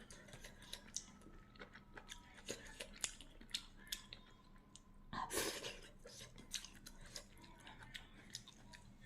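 Faint chewing and small clicking sounds of a person eating a meal, with one louder burst of noise about five seconds in.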